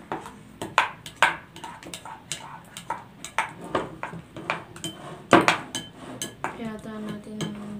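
Wooden spoons knocking and scraping against glass bowls as two batches of thickening homemade slime are stirred, in irregular clacks. There is one louder knock about five seconds in.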